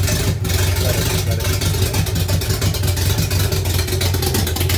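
Rebuilt Volvo B20 four-cylinder engine with twin SU HS6 carburettors running steadily and roughly at one of its first starts, on a very rich mixture.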